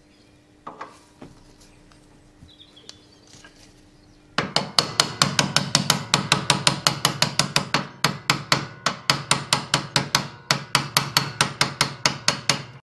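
Small hammer tapping a steel bearing press tool from below, driving a new steering bearing up into the stub-axle housing of a Countax C300 lawn tractor. After a few quiet handling clicks, fast light metallic taps start about four seconds in, about five a second, with two short pauses.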